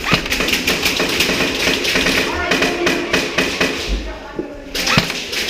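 Airsoft gunfire: a rapid run of sharp snapping shots, several a second, thinning out to a few scattered shots about four seconds in.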